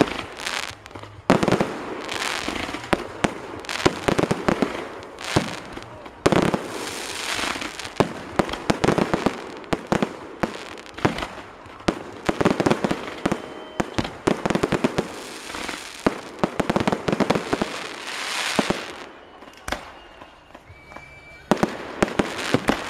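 Fireworks salute going off: a rapid, irregular run of bangs and crackling bursts. The bangs ease off briefly about three-quarters of the way through, then pick up again.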